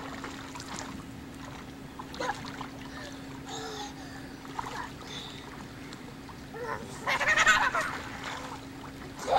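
Children's short calls and squeals in a swimming pool, with water splashing, loudest about seven seconds in, over a steady low hum.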